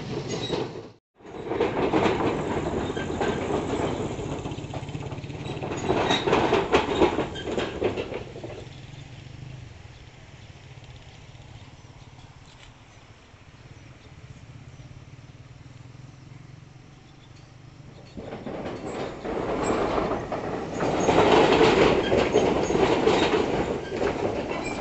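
Traffic crossing a steel truss bridge overhead, its deck rumbling and clattering like a train, in two long passes. Between them the fast-flowing stream keeps up a quieter steady rush.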